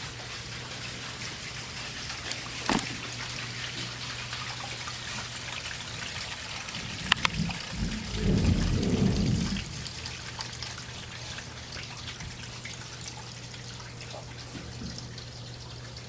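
Water running and trickling through the house plumbing from a bath being run upstairs, heard from the basement over a steady low hum. A few sharp knocks come near 3 and 7 seconds in, and a louder low rumble follows for about two seconds.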